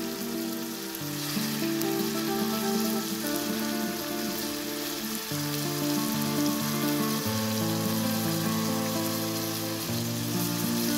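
Chopped cauliflower, tomatoes and peppers sizzling in a wide pan over a wood fire. Background music of slow, held notes plays throughout.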